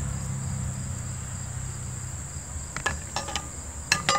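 Steady high-pitched chirring of insects, with a low hum beneath it. Near the end come a few sharp clicks and knocks as the red plastic burger press is handled and its lid is set down on a plate.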